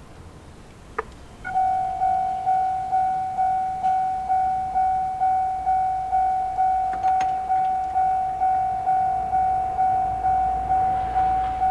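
Japanese railway level crossing's electronic warning bell, JR Central-type sound, starting up about a second and a half in and ringing in a steady rhythm of a little over two strikes a second. A single sharp click comes just before it starts.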